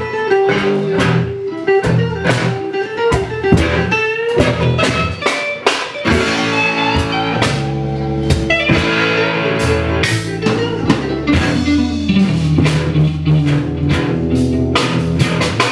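Live reggae band jamming instrumentally: guitar with bass and a drum kit keeping a steady beat.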